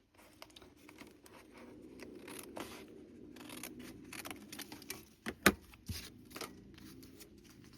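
Paper and craft materials being handled at close range: scattered rustles and light clicks, with one sharp click about five and a half seconds in, over a steady low hum.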